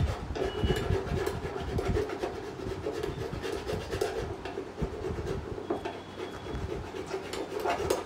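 Irregular rubbing and scraping with scattered small knocks as a plaster-caked casting mould is handled and worked by hand.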